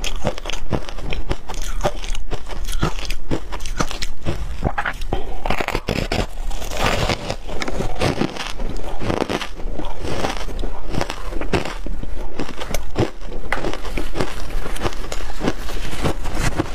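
Chunks of shaved ice coated in matcha powder being bitten and chewed, with a dense, irregular run of crunches and cracks.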